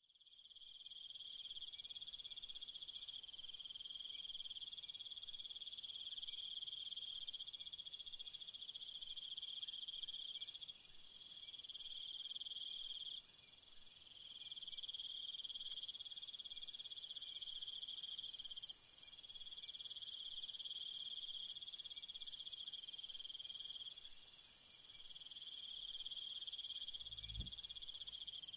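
Night chorus of crickets and other insects: a steady high trilling at several pitches, with separate callers starting and stopping every few seconds. A low thump near the end.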